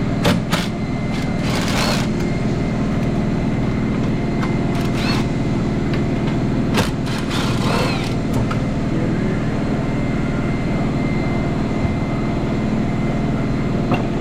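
A steady mechanical hum throughout, with scattered sharp clinks and short clatters of metal tools and engine-bay parts being handled, clustered in the first two seconds and again around the middle.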